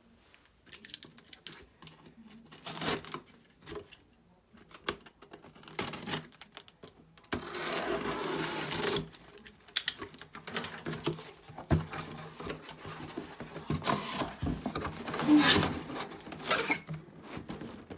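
A box cutter slicing along the packing tape of a corrugated cardboard shipping box, with a long rasp about seven seconds in. Cardboard flaps are then pried open, with scraping, rustling and knocks of the cardboard.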